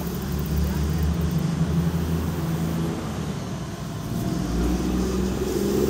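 An engine running steadily, a low drone that holds its pitch.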